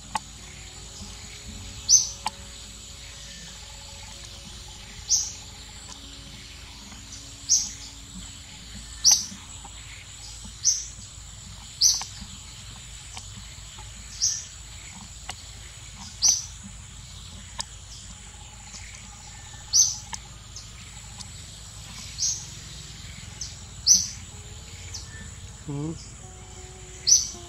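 A bird calling repeatedly in the forest: a short, high call about a dozen times, every one to three seconds, over a steady high-pitched insect drone.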